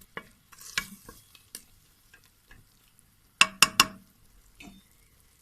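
A spoon scraping and clicking in a cooking pot as frying food is stirred, with three sharp clanks in quick succession about three and a half seconds in.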